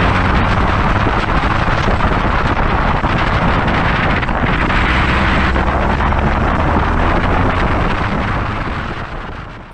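Onboard sound of a Rotax Max 125cc two-stroke kart engine running at racing speed, mixed with wind rushing over the microphone. It fades out near the end.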